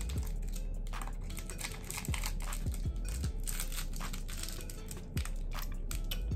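Plastic candy wrapper crinkling and tearing as it is opened, a dense run of irregular crackles and clicks with a few dull low thuds.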